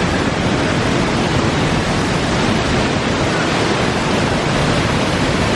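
Waterfall in monsoon flow, its water rushing and crashing in a loud, steady, even roar.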